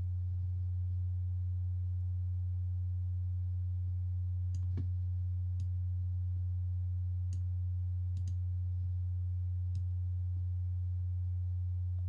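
Steady low electrical hum on the recording, with a few faint clicks spaced a second or so apart between about four and ten seconds in, typical of mouse clicks while drawing.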